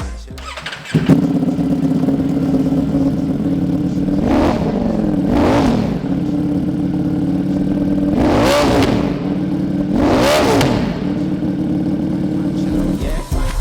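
Ducati Streetfighter V4's V4 engine through a Rage exhaust, coming in suddenly about a second in and idling, with four throttle blips that rise and fall in pitch: two close together a little after four seconds in and two more around eight and ten seconds in.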